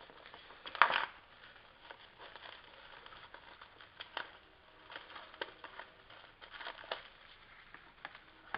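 Plastic shrink wrap crinkling and tearing as it is pulled off a DVD case, with small clicks from the plastic case being handled; the loudest crackle comes about a second in.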